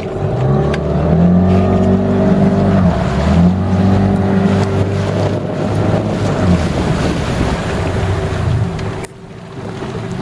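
Motorboat's outboard engine running close by. It rises in pitch about half a second in, then holds steady, and drops away suddenly about nine seconds in, over the hiss of water and wind.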